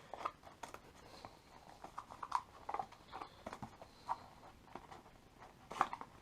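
A product box being opened and its packaging handled: irregular light taps, clicks and rustles, with a couple of louder knocks.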